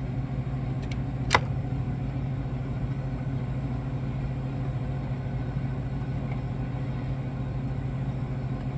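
Steady low machine hum, with a single sharp click about a second and a half in.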